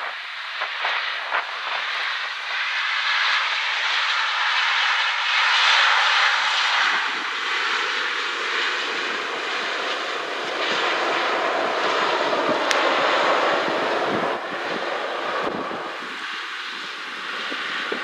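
Boeing 777-200ER's GE90 jet engines running as the airliner rolls out on the runway after landing. The rushing engine noise swells to its loudest about six seconds in, then eases.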